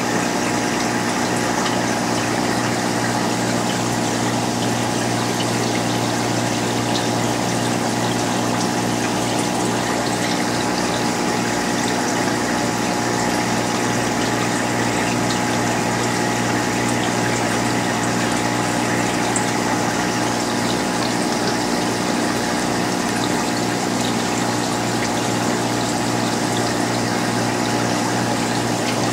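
Aquarium pump running with a steady electric hum and an even hiss of air or water.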